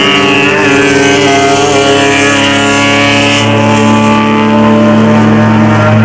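Honda race car's engine running hard at high revs, heard loud from inside the cabin. A high whine rides over it for the first few seconds and stops about three and a half seconds in.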